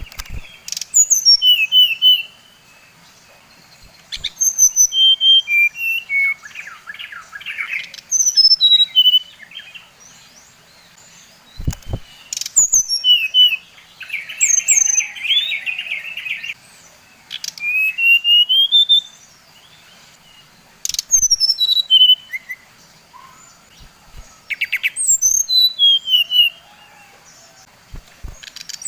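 Sikatan rimba dada coklat (brown-chested jungle flycatcher) singing: short phrases of clear whistled notes, mostly stepping downward, repeated every few seconds. Some phrases have a buzzy rattling chatter, and a few sharp clicks fall between phrases.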